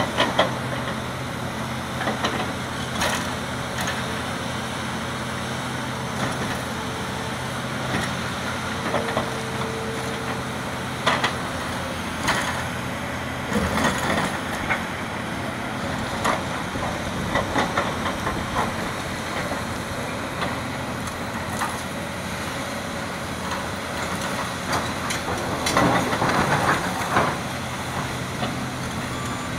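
Hitachi Zaxis 470 LCH excavator's diesel engine running steadily as its bucket digs and scrapes through broken rock, with irregular knocks and clatter of stone against the steel bucket, busiest near the end.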